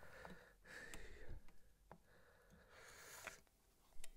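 Faint handling noise from a guitar's scratch plate being lifted off the body: a few light clicks and soft rustles.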